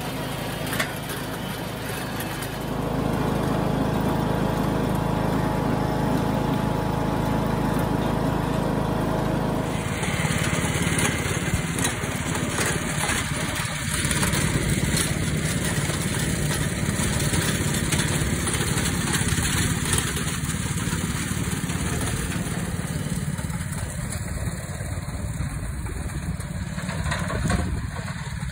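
Riding lawn tractor's engine running steadily while it tows a leaf sweeper. About ten seconds in, the sound changes abruptly from a steady hum to a rougher, noisier run.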